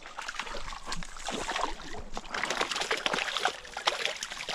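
A hooked brook trout thrashing at the surface in shallow water, a steady run of small irregular splashes.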